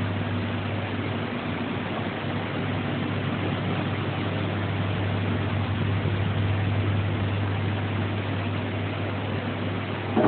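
Steady machine hum with an even hiss, like a running motor or fan. A short knock comes just before the end.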